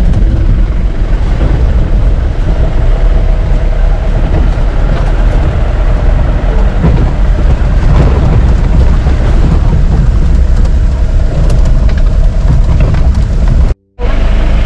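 Off-road jeep driving over a rough dirt track, heard from on board: a loud, steady low rumble of engine and jolting. The sound cuts out for a moment near the end.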